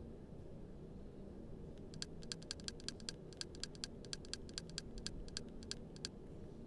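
A rapid run of light clicks, about six a second, starting about two seconds in and stopping near the end, made while scrolling through a Kodi menu list.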